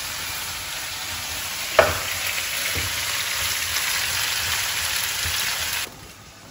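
Sliced bell peppers and zucchini sizzling in oil in a frying pan as they are stirred with a wooden spoon, with one sharp knock about two seconds in. The sizzle cuts off suddenly shortly before the end.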